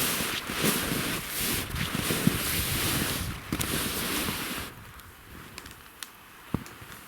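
Strong gusty wind buffeting the microphone with a rushing roar. About two-thirds of the way through it drops away suddenly, leaving a few faint clicks.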